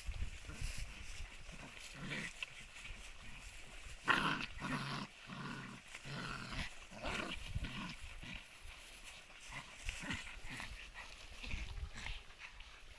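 Two desi puppies fighting, giving repeated short dog vocalisations in bursts, loudest about four seconds in.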